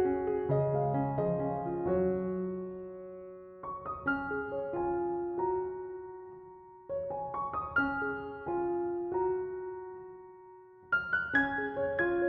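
Background piano music, slow and gentle: groups of notes struck together and left to fade, with a new phrase about every three to four seconds.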